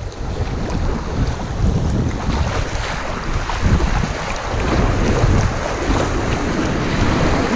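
River rapids rushing and splashing against a plastic kayak's hull, with paddle blades dipping and splashing. Heavy wind rumble on the microphone mixes in.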